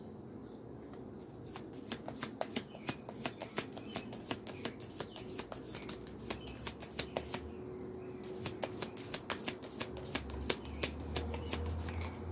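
A deck of white paper cards being shuffled by hand overhand, a fast, uneven run of card flicks and clicks starting about a second and a half in.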